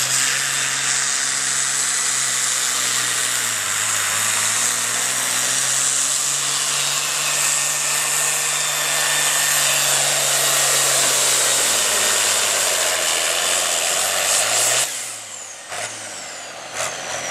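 International Harvester pulling tractor's diesel engine running at full power under load, with a high steady whistle over it. Its pitch sags as the tractor bogs down toward the end of the pull, then about 15 seconds in the throttle drops off suddenly and the high whine falls away, before the engine picks up again at a lower speed near the end.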